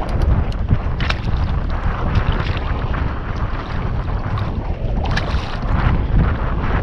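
Wind buffeting the microphone, a steady low rumble, with a few short sharp clicks and rustles about a second in and again about five seconds in.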